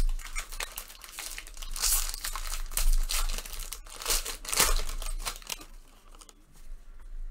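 Foil trading-card pack wrapper crinkling and tearing as it is ripped open, dying down about six seconds in.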